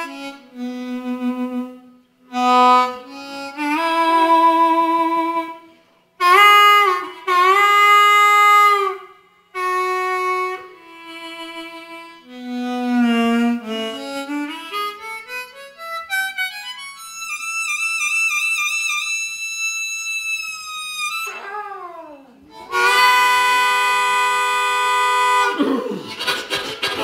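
Solo blues harmonica playing a melody of bent notes, then running up into a high note held with a wavering vibrato, sliding quickly down, and sounding a held chord near the end.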